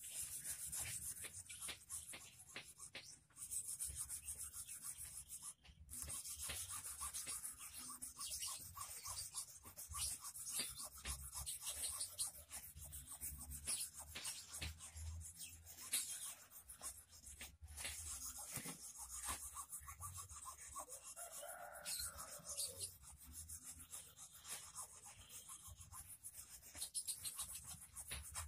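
Hand file rasping against a steel wire in quick back-and-forth strokes, filing the wire for an eel hook.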